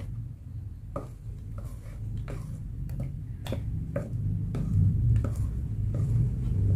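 A metal spatula beating thick, sticky martabak batter in a plastic tub, each stroke a short click or tap against the tub, about one to two a second; the batter is being worked until smooth and glossy. Under it, a low rumble grows steadily louder.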